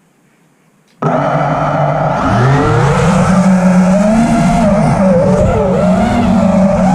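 FPV quadcopter's brushless motors whining under throttle. Starts suddenly about a second in, the pitch rising and falling with the throttle, with a sharp climb in pitch near the end as it punches out.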